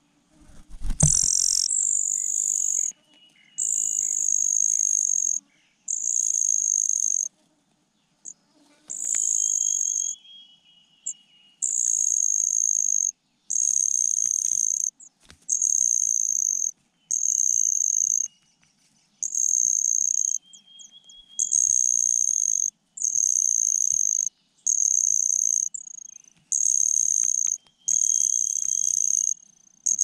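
A cricket trilling in regular bouts: a steady high-pitched trill of a second or two that starts and stops sharply, repeating every couple of seconds, with faint thin chirps between bouts. A single knock about a second in.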